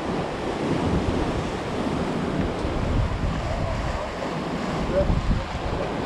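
Ocean surf washing and breaking around the pier's pilings, a steady rushing noise, with wind buffeting the microphone.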